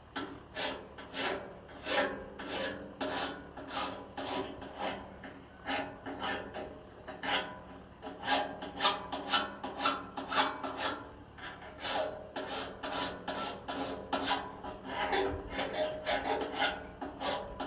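Steel blade of a pair of loppers being sharpened with a hand metal file, rasping strokes at about two a second with a metallic ring under them, putting a single-sided bevel on the cutting edge.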